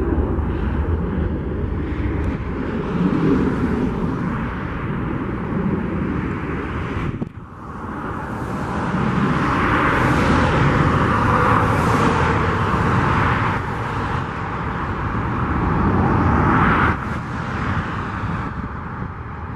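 Jet engines of a Boeing 737 airliner on final approach, a steady, loud noise that grows louder about eight seconds in as the plane nears, with a brief dropout about seven seconds in and a drop in level near the end.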